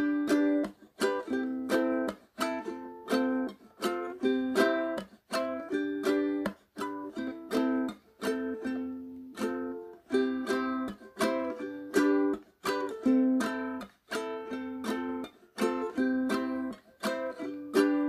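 Background music: a plucked-string instrumental tune with a steady rhythm of sharply struck notes that fade quickly.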